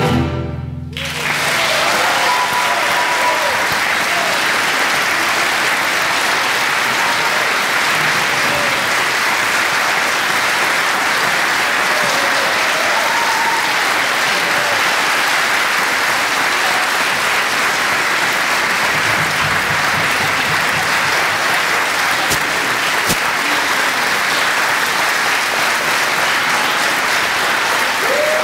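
A string orchestra's final chord cuts off within the first second, and the audience breaks into steady, sustained applause.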